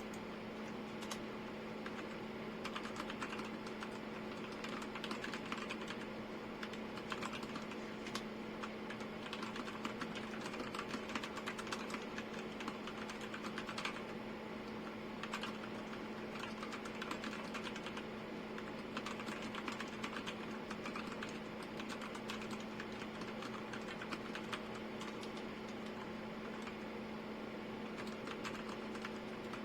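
Typing on a Royal Kludge RK G87 mechanical keyboard: a continuous, irregular stream of rapid key clicks, over a steady low hum.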